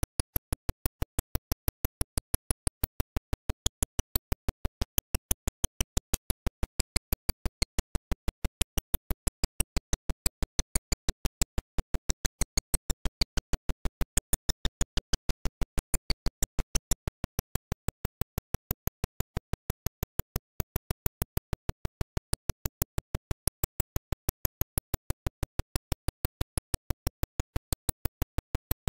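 Rapid, evenly spaced clicking, about five sharp clicks a second with near-silence between them: a digital audio glitch that has replaced the recorded sound.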